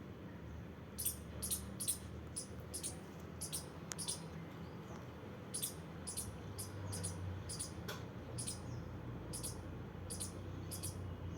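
Squirrel giving a run of short, high-pitched chirps, about two a second, with a brief pause a few seconds in.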